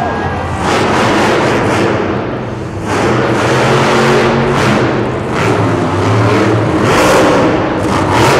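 Monster truck engines revving hard in repeated loud surges, rising and falling every second or two.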